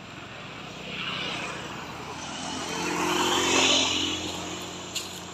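A motor vehicle passing: its engine and tyre noise swells to a peak about three and a half seconds in, then fades.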